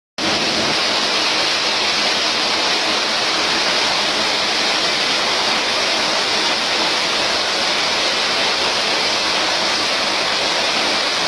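Loud, steady rush of water from the flooding, an even noise that doesn't let up.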